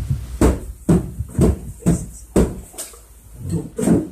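Boxing punch pads being struck: sharp slaps about twice a second, eight or so in all, with a short pause before the last two.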